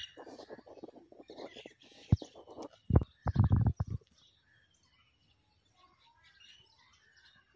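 Small birds chirping. A fast crackling patter runs through the first two seconds or so, and a loud low rumbling burst comes about three seconds in and lasts under a second.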